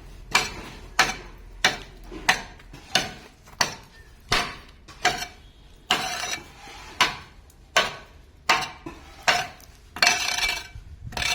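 A metal hand tool striking repeatedly during masonry wall work, about one and a half strikes a second with a short ring after each, steady and evenly paced; a longer scraping stroke comes about six seconds in and again near the end.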